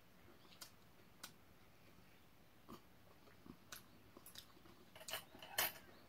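Faint sounds of a person eating with metal chopsticks from a bowl: scattered small sharp clicks and mouth sounds, with a cluster of louder ones about five seconds in.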